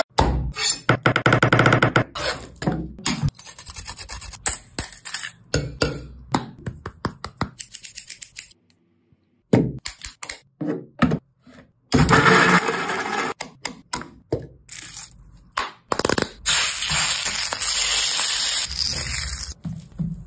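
Kitchen food-preparation sounds in quick succession. Potato chips rattle as they are tossed in a glass bowl, then come scattered clicks and clatters of utensils and a grinder jar, and later two stretches of steady noise a few seconds long.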